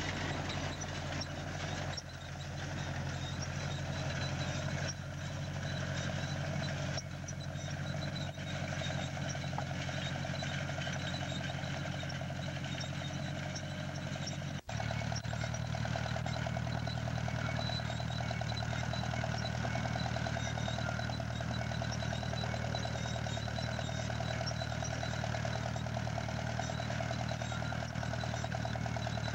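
1948 Ferguson TE20 tractor's four-cylinder engine running steadily while it pulls a seed drill, with a few knocks in the first half. About halfway through the engine note changes abruptly.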